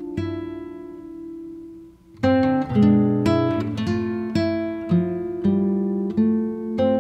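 Background music of plucked acoustic guitar, single notes ringing out and fading. Playing thins to a brief lull about two seconds in, then picks up with a run of notes roughly every half second.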